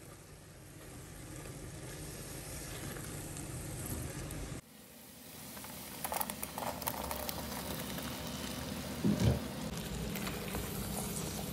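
Methi-and-spinach masala sizzling and bubbling in a nonstick frying pan as it is stirred. After a cut, diced raw potatoes are tipped into the pan, landing with a scatter of quick ticks, and the frying sizzle carries on, with a short knock about two-thirds through.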